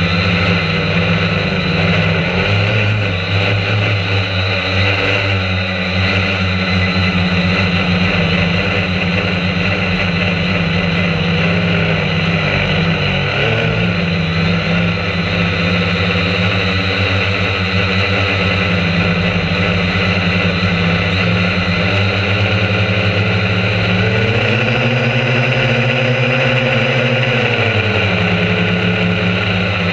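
Drone's electric motors and propellers whirring steadily, heard loud and close from the camera mounted on the drone. About 24 seconds in, the pitch climbs, holds higher for a few seconds, then drops back as the motors speed up and slow down.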